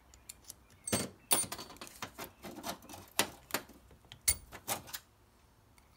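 Small steel parts clinking: caster shims and bolts being handled and fitted to a rebuilt Jaguar upper control arm's ball joint. About a dozen sharp clinks and taps, irregularly spaced, over about four seconds.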